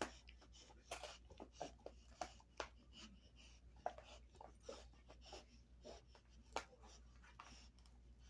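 A large dog gnawing and chewing on a beef cheek roll: irregular clicks and crunches, with a few louder snaps spread through.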